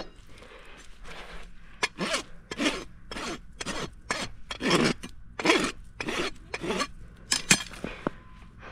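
Hoof rasp filing a horse's hoof in a quick run of short scraping strokes, about two a second, starting about two seconds in: a final once-over to smooth the trimmed hoof.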